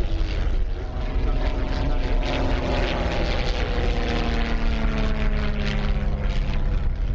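Fiat G.46 trainer's inverted inline-six piston engine and propeller droning in flight. From about a second in, the pitch falls steadily as the aircraft passes by.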